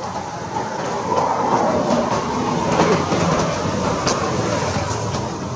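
A passing vehicle: a broad rumbling noise that swells to its loudest about three seconds in and then eases off.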